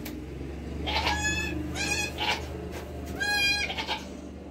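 Newborn Nigerian Dwarf goat kids bleating: three short, high-pitched bleats, about a second, two seconds and three seconds in.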